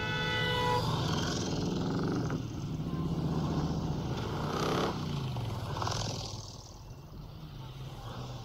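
A horn sounds for under a second, then heavy cruiser motorcycles ride past one after another, their engines rumbling, the pitch dropping as each goes by. The engine sound fades from about six seconds in.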